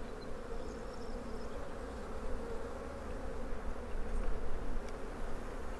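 Honeybees of an opened hive colony buzzing in a steady hum while its frames are inspected.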